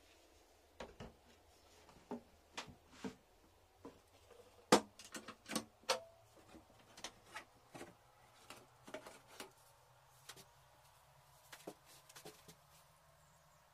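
Scattered clicks and knocks of a hand-held trim router and its acrylic base being handled and set down on a clear acrylic routing template, with the router switched off. The loudest knock comes about five seconds in.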